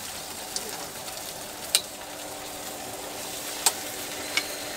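Bok choy, bean sprouts and egg sizzling in a hot wok as they are stir-fried, with four sharp clinks of the metal ladle against the wok.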